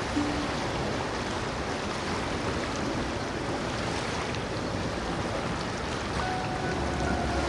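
Steady wash of outdoor noise at a marina dock, wind and lapping water, with no distinct events. Faint steady tones come in near the end.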